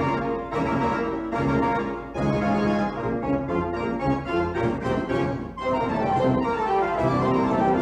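Instrumental background music of held keyboard chords and notes that change every second or so.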